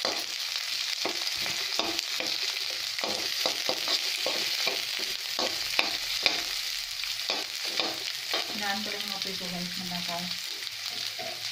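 Chopped onion and garlic sizzling in hot sunflower oil in an aluminium wok, the onion just added to the browned garlic, while a metal spoon scrapes and taps against the pan with each stir.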